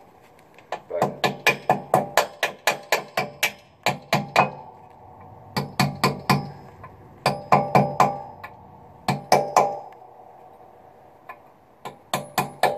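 Rapid hammer taps on metal in bursts of several strikes, about four a second, each ringing briefly, with short pauses between bursts. An M923A1 5-ton truck's wedge brake adjuster cover is being driven into the rear brake spider, a cover that is hard to seat.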